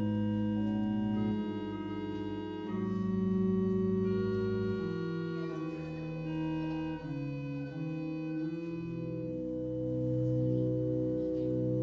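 Organ music: sustained chords held for a second or two each before moving to the next. Near the end the chords take on a steady pulsing.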